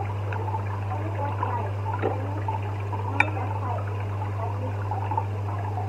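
Steady low hum under a continuous trickling, bubbling water sound, with one sharp clink of a metal fork on a ceramic bowl about three seconds in.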